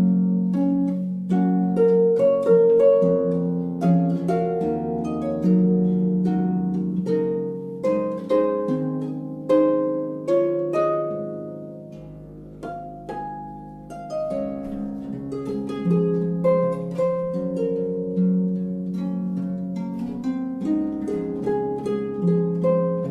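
Instrumental background music of plucked strings, a run of quick notes over held lower tones, softening briefly about halfway through.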